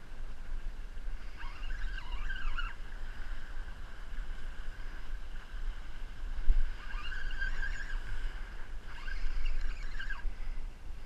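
Wind rumbling on the microphone over sea water washing against the breakwater rocks, with several short, wavering high-pitched squeals coming and going.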